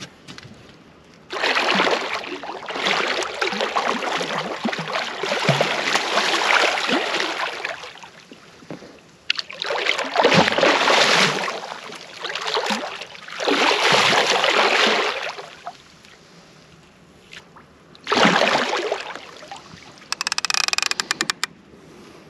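Water sloshing and splashing in four long bouts with quieter gaps between them, in the brown floodwater of a swollen river. Near the end comes a short, fast rattle of clicks.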